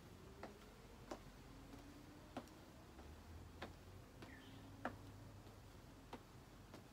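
Faint footsteps of a person walking in place on a hard floor: sharp taps about every 0.6 s, alternating louder and softer from one foot to the other.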